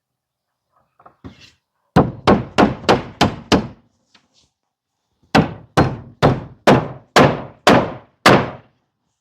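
Hammer driving nails into a wooden batten on board siding: a couple of light taps, then a run of six blows at about three a second, a pause, and seven more blows.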